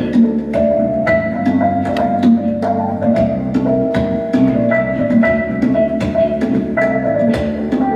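Live band music: congas beating a steady rhythm of sharp hand-drum strikes under held melody notes on keyboard.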